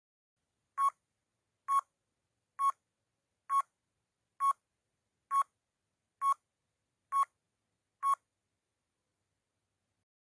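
Countdown timer sound effect: nine short electronic beeps of the same pitch, evenly spaced a little under one per second, stopping about two seconds before the end.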